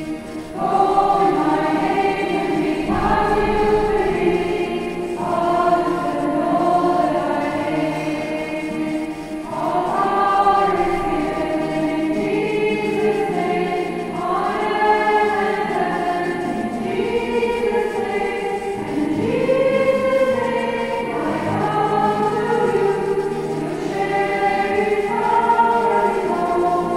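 A choir singing, the voices holding long notes in phrases that swell and fall.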